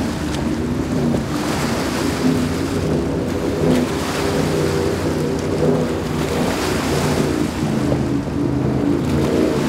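Outerlimits 46 Limited offshore powerboat running at high speed: a steady engine drone with the rushing hiss of the hull and spray on the water, swelling and fading.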